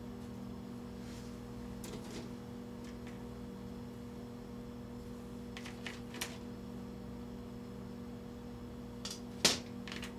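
Steady electrical mains hum with a few light clicks and clatters of plastic miniature sprues being handled and set down, the loudest click near the end.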